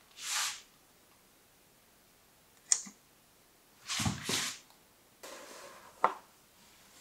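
Caulking gun being worked as a bead of sealant is run along a window-sill joint: a short hiss near the start, a sharp click, a louder double squish about four seconds in, then a soft rubbing noise and another sharp click near the end.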